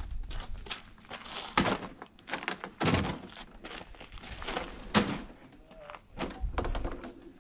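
Footsteps crunching on packed snow and ice, with dull thunks as boxes are set down and handled; the loudest knocks come about a second and a half, three and five seconds in.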